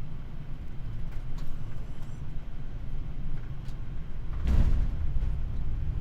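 Boeing 787-9 flight deck noise in the flare: a steady low rumble, then about four and a half seconds in a sudden thump and a louder rumble as the main wheels touch down on the runway.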